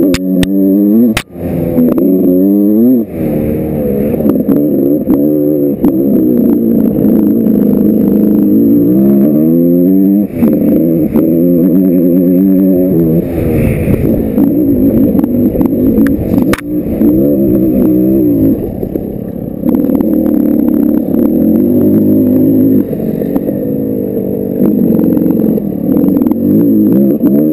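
Big-bore Yamaha YZ125 two-stroke dirt bike engine under hard throttle, its pitch climbing and dropping over and over as the rider accelerates and shifts through the gears. It is heard close up from the camera on the bike, with a few sharp knocks over the engine.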